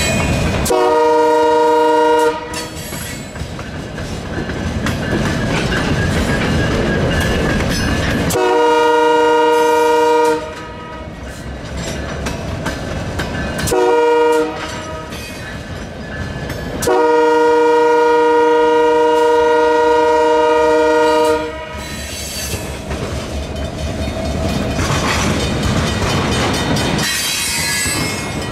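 Diesel locomotive's multi-tone air horn sounding the grade-crossing signal: long, long, short, long. Between and after the blasts, the train's engine and wheels running past, with wheel clatter as the cars cross.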